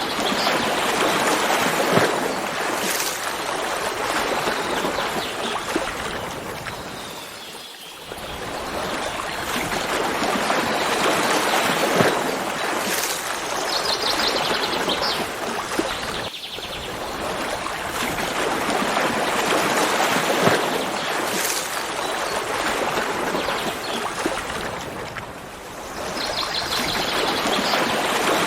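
Stream water rushing steadily, swelling and easing, with a few brief lulls. Short, rapid high trills of a bird come through about halfway through and again near the end.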